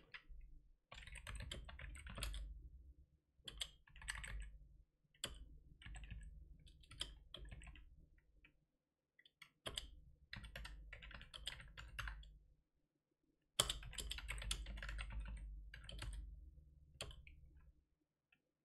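Typing on a computer keyboard: runs of keystrokes with two brief pauses, stopping near the end.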